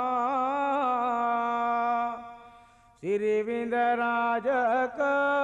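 A solo voice chanting a slow, drawn-out melody in long held notes with wavering ornaments. The phrase fades away about two seconds in, and a new one starts sharply a second later.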